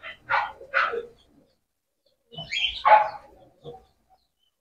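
Short animal calls: two quick sharp ones in the first second, then a louder one about two and a half seconds in, and a faint one shortly after.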